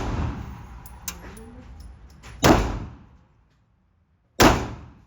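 Two handgun shots about two seconds apart, each a sharp crack with a ringing decay, fired as slow, deliberate shots in a three-shot string. The tail of the previous shot fades at the start.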